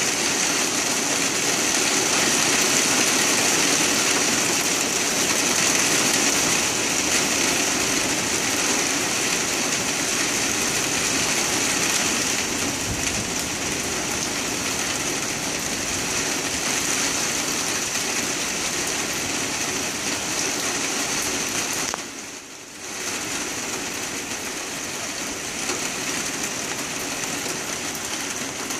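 Heavy rain pouring down onto a wooden deck and patio, a loud steady hiss that dips briefly about three-quarters of the way through, then carries on a little quieter.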